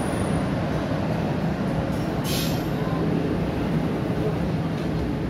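Passenger train's coaches rolling past as the train pulls out, a steady rumble of wheels on rail. A brief hiss comes about two seconds in.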